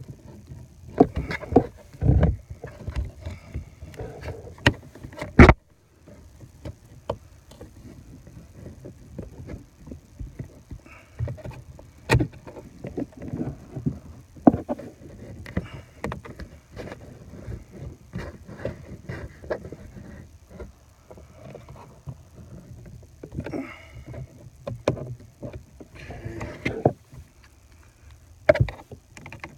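Scattered clicks, knocks and scraping of a screwdriver and hands probing behind a pickup's steering wheel for the airbag release clips, with a sharp knock about five seconds in.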